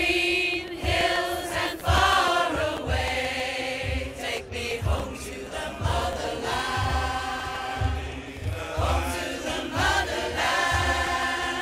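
Women's choir singing a chant in harmony, held notes with many voices together, over a low drum beat at about two strokes a second.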